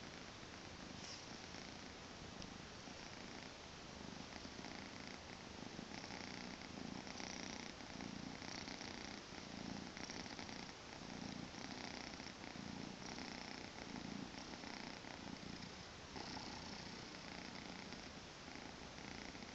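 Two-month-old Maine Coon kitten purring steadily, faint and close. The purr swells and fades in a regular rhythm about once a second, with each breath in and out.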